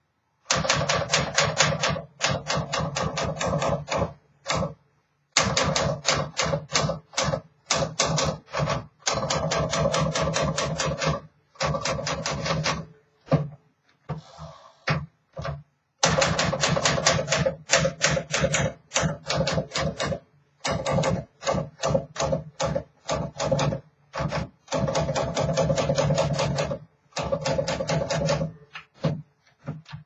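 Freshly refurbished 1953 Smith Corona Sterling manual typewriter being typed on: fast runs of sharp typebar strikes, many a second, broken every few seconds by short pauses.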